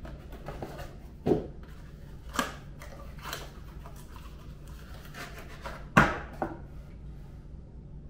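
A small cardboard box being opened and a power adapter slid out and handled: cardboard rubbing and scraping, with several sharp clicks and knocks, the loudest about six seconds in.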